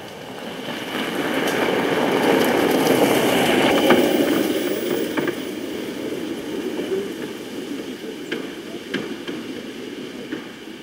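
Custom electric off-road golf cart driving over rough grass, its tyres and body rumbling and rattling. The sound swells for the first few seconds, then fades as the cart moves away, with a few sharp rattles near the end.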